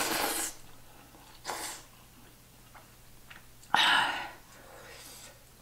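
Slurping instant noodles and broth from a bowl held to the mouth: three airy slurps, a short one at the start, a small one about a second and a half in, and the longest and loudest about four seconds in.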